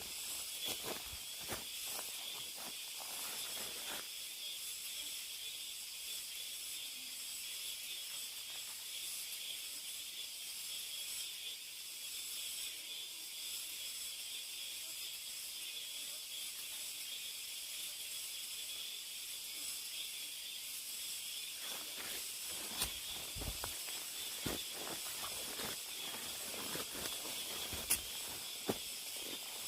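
Chorus of cicadas buzzing steadily. Over it come footsteps, crunching in the first few seconds and again through the last eight seconds or so.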